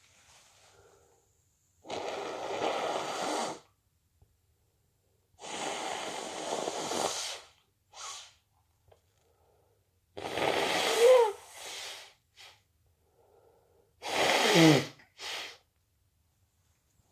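A person with a cold blowing their nose twice, each a long noisy blow of a second and a half or more, then sneezing twice, the sneezes the loudest sounds, with brief breaths in between.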